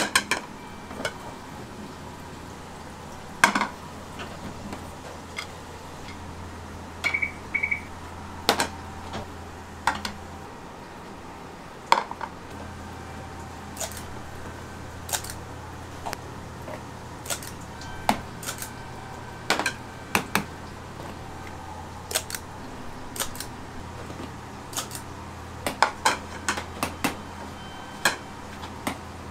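Metal kitchen utensils tapping and clinking at irregular intervals while okonomiyaki is made, over a steady low hum. Two short high beeps come about seven seconds in.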